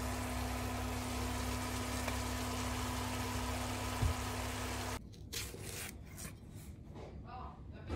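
Minced pork sizzling in a hot pan over a steady hum, with a dull thump about four seconds in as fried egg tofu slides onto it. After a sudden cut, a knife makes a few crisp strokes through a cucumber on a cutting board.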